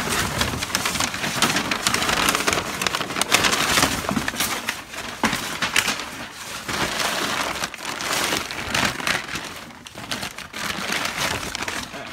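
Brown kraft packing paper rustling and crumpling continuously, with many short sharp crackles, as a steel frame rail is unwrapped and pulled out of a cardboard box.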